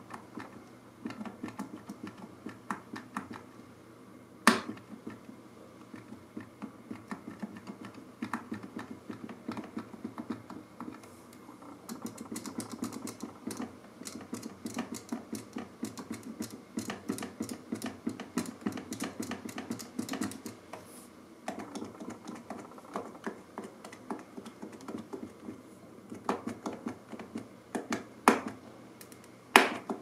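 PinePhone keyboard keys clicking as a finger presses them one after another, testing keycaps that jam and fail to go down. A fast run of presses comes in the middle, with a sharper, louder click about four seconds in and a few more near the end.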